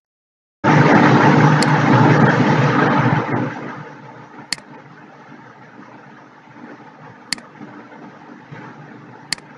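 A steady rushing noise with a low hum starts about half a second in. It is loud for about three seconds, then settles lower. Four sharp clicks fall over it, like mouse clicks.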